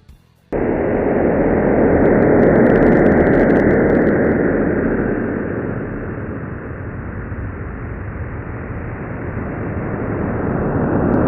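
Dense, noisy rumbling drone with no clear tones, presented as the sonification of the Event Horizon Telescope's image of the Milky Way's central black hole, Sagittarius A*. It starts abruptly about half a second in, eases off in the middle and swells again near the end.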